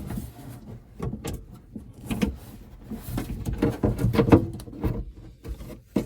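Irregular small clicks and knocks of a door lock's cable end and plastic housing being handled and twisted into place inside a car door.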